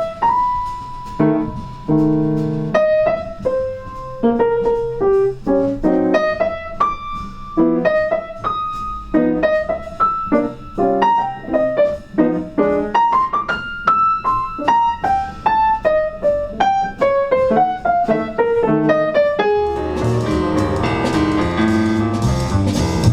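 Piano playing a melody over chords, each note struck and then fading. Near the end, bass and drums come in under it.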